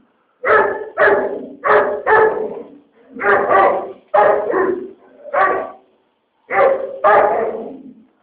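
A dog barking repeatedly, about ten loud barks, several of them in quick pairs, stopping shortly before the end.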